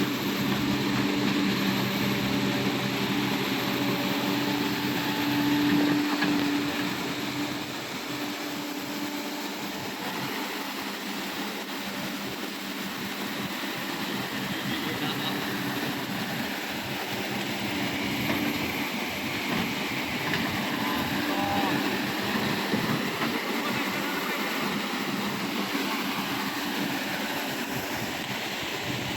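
Excavator's diesel engine running with a steady hum that fades after about seven seconds, over a continuous rush of flowing floodwater.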